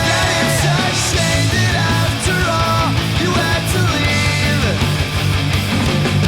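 Hard rock music track: guitar over a dense, driving rhythm, with a lead line that slides and bends in pitch.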